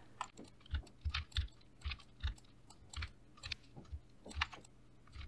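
Computer mouse and keyboard clicking: about a dozen short, irregular clicks, each with a dull thud, as the user works at the desk.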